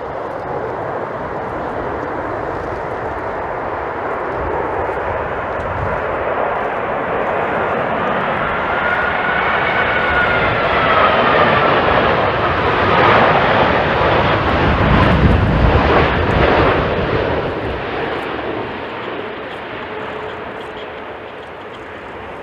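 Jet airliner passing close by on its landing approach. The engine noise builds to a peak a little past halfway and then fades, with a whine that drops in pitch as it goes by.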